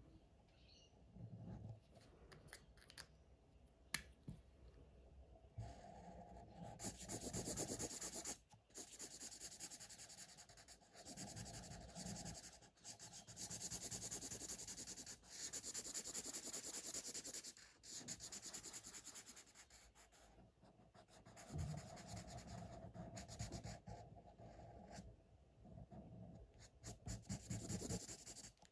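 Felt-tip marker scratching across paper in rapid back-and-forth colouring strokes. The strokes come in runs of a few seconds with short pauses between, fainter at first and louder from about five seconds in.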